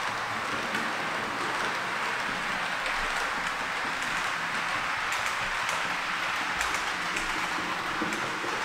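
H0-scale model train, an electric locomotive hauling double-deck coaches, running on the layout track: a steady rolling whir, with light clicks from the wheels on the rail joints coming more often in the second half.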